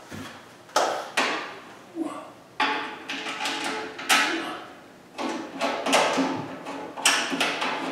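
Irregular knocks and clanks from a Comfort Zone garage heater's housing and ceiling mounting bracket being handled and adjusted by hand, each knock trailing off briefly, about half a dozen in all.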